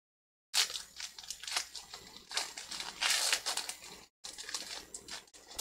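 Foil wrapper of a Pokémon card booster pack crinkling in a string of short, irregular bursts as the pack is torn open.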